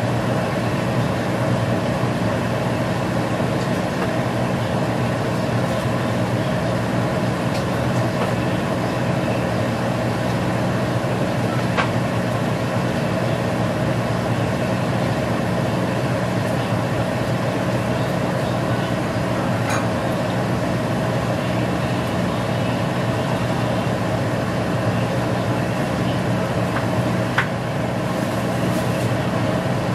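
Steady mechanical hum, unchanging throughout, with a few faint clicks scattered through it.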